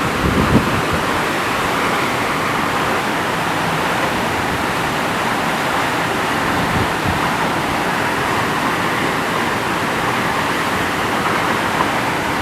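Waterfall: a steady rush of falling, splashing water, with a brief low bump about half a second in.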